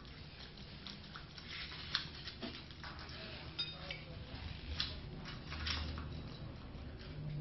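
A cat and a small dog eating from stainless steel bowls on a tile floor: scattered clinks and knocks of the metal bowls as they eat.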